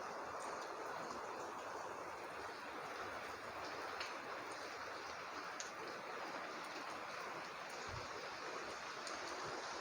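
Steady rain falling, a continuous hiss with a few faint drip ticks.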